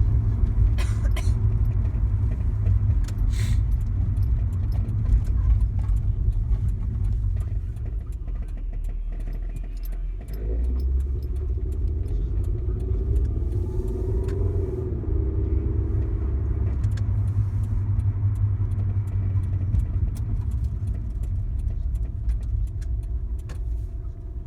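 Car running with a steady low rumble and many scattered clicks and rattles. A faint whine rises and falls about halfway through.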